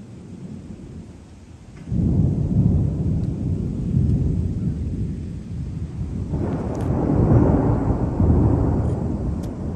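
Thunder: a long, low rolling rumble that sets in suddenly about two seconds in and swells again, brighter and fuller, around six seconds in.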